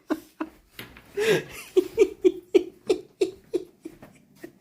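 A person laughing in short, even bursts, about three a second, with a louder, rougher burst about a second in.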